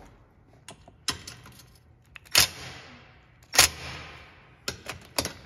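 Compact Milwaukee cordless impact driver hammering in several short bursts, each a quick tap of the trigger, snugging 10 mm skid plate bolts to only about 7 newton metres.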